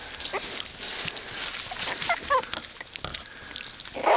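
Havanese puppies giving a few short, high squeaks amid soft scuffling and clicking in their den.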